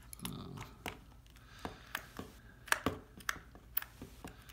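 Irregular light clicks and taps of a small screwdriver on the tiny screws and hard plastic back case of a calculator, as the back-cover screws are worked loose.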